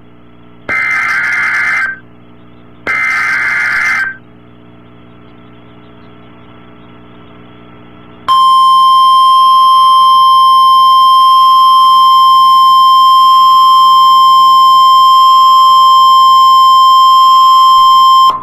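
NOAA Weather Radio Emergency Alert System signal: the last two bursts of the SAME digital header, each about a second long with a pause between, then after a few seconds' gap the steady 1050 Hz warning alarm tone, held for about ten seconds and cut off sharply. The tone announces an alert, here a severe thunderstorm watch.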